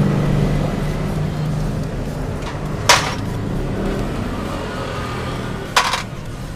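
Two sharp metallic clicks about three seconds apart, the second a quick double, from tools and bolts being handled while a scooter engine's rocker-arm assembly is taken apart, over a steady low background hum.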